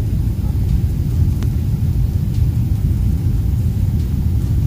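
Steady low rumble of cabin noise inside a Boeing 777-300ER airliner in flight, from its engines and the airflow around the fuselage.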